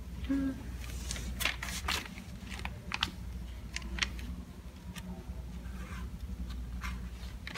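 Irregular small sharp clicks and taps, about eight over several seconds, over a steady low hum of room noise.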